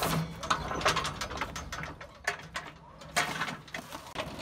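Electric pallet jack rolling its steel forks across asphalt toward a pallet, with irregular metallic clanks and rattles.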